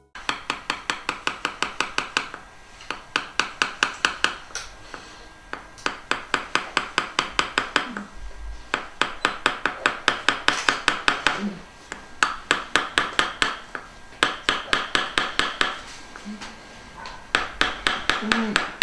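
Fast, light metallic taps of a surgical mallet on an osteotome, about six or seven a second in runs of one to two seconds with short pauses: the osteotome being driven up through the implant site to lift the maxillary sinus floor in an internal sinus lift.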